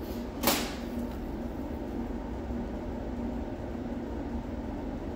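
Steady background machine hum with a held low tone, like a fan running, and a brief hiss about half a second in.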